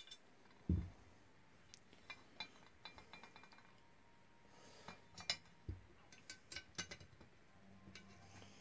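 Machined aluminium chassis parts being handled: light metallic clinks and clicks as the anodized front plate is picked up and set down, with a dull thump about a second in and another near six seconds.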